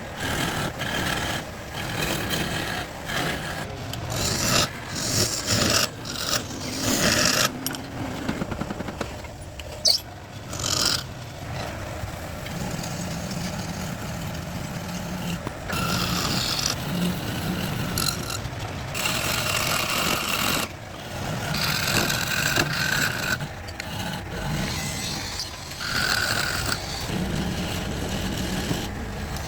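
Irregular scraping and rubbing strokes of a hand tool working wood, uneven in loudness, with a sharp click about ten seconds in.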